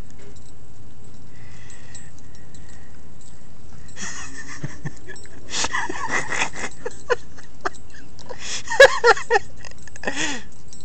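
Chihuahua chewing a leaf bug held in its mouth: irregular wet chewing and crunching that starts about four seconds in and is loudest around nine seconds.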